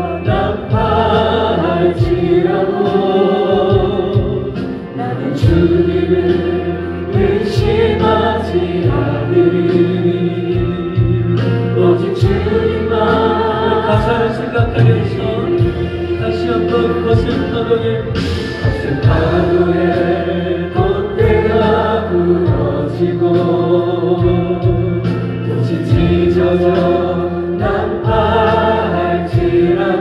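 Christian choir music: a choir singing a hymn in held, wavering notes over instrumental accompaniment with a steady bass.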